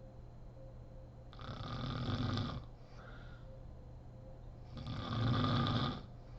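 A sleeping woman snoring: two loud snores, each lasting over a second, about three and a half seconds apart, with a soft breath between them.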